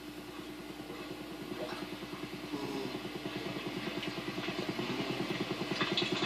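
An engine running steadily with a fast, even low pulsing and a constant hum, growing gradually louder.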